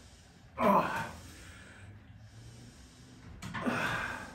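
A man breathing heavily from exertion while exercising: two loud, rushing breaths about three seconds apart.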